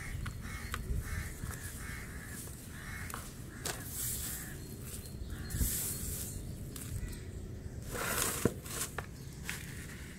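Wet sand being squeezed and crumbled by hand in a plastic tub: gritty squelching and crunching with small clicks, and a louder rush of falling sand about eight seconds in.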